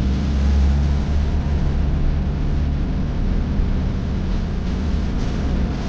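Steady rushing roar of a flooding river, with a strong deep rumble under it.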